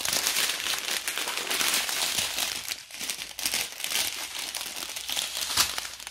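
Small clear plastic bags of diamond painting drills crinkling and crackling as they are picked up and handled, a busy run of sharp little crackles.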